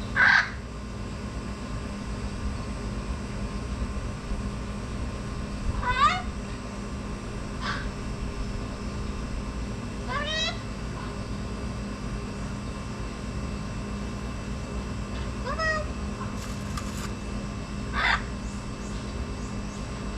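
About six short, rising meow-like calls a few seconds apart, over a steady low hum.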